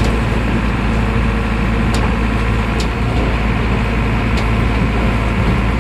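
Diesel engine of an old JCB machine running steadily, with a few light clicks.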